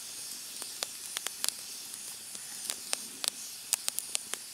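Wood campfire crackling, with sharp irregular pops over a steady hiss.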